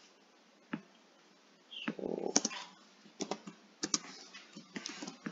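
Faint computer keyboard keystrokes and clicks, scattered singly and in small clusters with pauses between.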